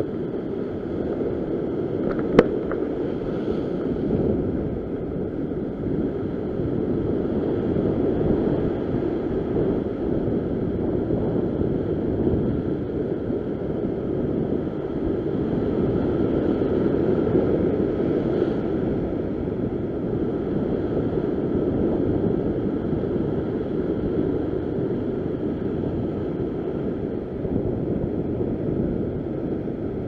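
Ocean surf surging and breaking over rocks: a steady, loud rush of white water, mixed with wind on the microphone. One sharp click comes about two and a half seconds in.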